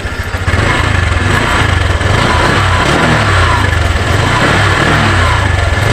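2021 Honda Click 125i scooter's liquid-cooled 125cc single-cylinder four-stroke engine revved at a standstill, jumping up about half a second in and rising and falling in pitch a few times.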